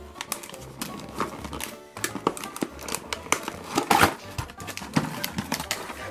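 A cardboard toy box and its plastic-and-card insert being handled and opened: a quick string of sharp clicks, taps and scrapes, loudest about two thirds of the way through.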